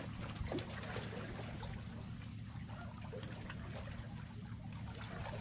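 Water running out through a shrimp pond's sluice gate into a bag net: a steady rush and trickle with a few faint ticks.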